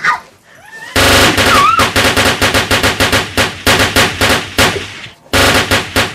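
Automatic gunfire sound effect: a rapid string of shots, several a second, starting about a second in, with a brief break near five seconds before another burst.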